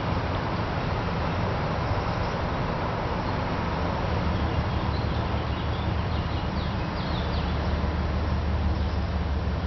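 Low rumble of a diesel locomotive coming slowly closer, growing louder in the second half, over a steady wash of road traffic. A few faint bird chirps sound around the middle.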